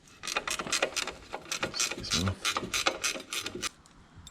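Ratchet spanner clicking in a quick run of strokes as a bolt is undone, about four or five clicks a second, stopping shortly before the end.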